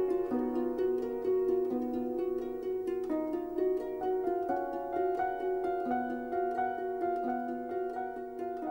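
Soft instrumental background music of quick plucked string notes, harp-like, slowly fading out.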